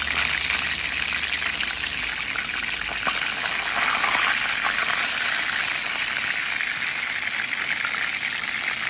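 Battered perch fillets frying in hot oil in a skillet: a loud, steady sizzle.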